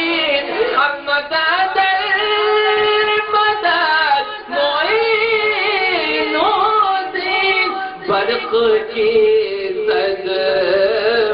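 Singing over music from an Urdu devotional song: a voice holds long notes with a slight waver and moves slowly from note to note.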